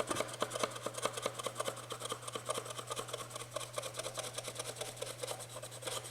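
Quick, rhythmic scraping strokes of a hand tool on a wooden board, about seven a second and steady throughout, over a constant low hum.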